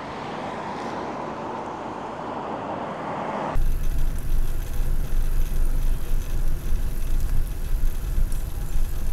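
A car passing through the intersection, its tyre and road noise swelling for about three and a half seconds. Then wind suddenly buffets the handlebar camera's microphone as the bicycle rides off, a loud rough rumble for the rest.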